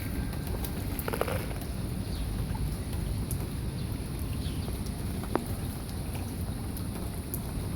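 Steady low rumbling outdoor noise with a few faint clicks and a short sharp tick about five seconds in.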